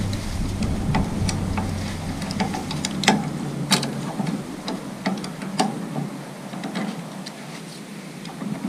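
Scattered sharp metal clicks and taps, irregularly spaced, as a bar tool is worked on the ring nut at the swivel head of an old cast-iron bench vise during reassembly.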